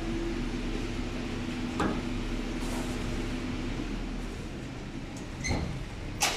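Steady low mechanical hum, with a faint steady tone for the first few seconds. A few short knocks come near the end.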